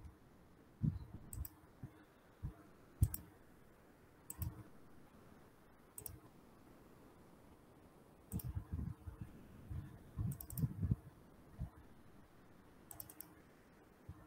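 Sparse, irregular clicks of a computer mouse and keyboard being worked, some coming in quick pairs.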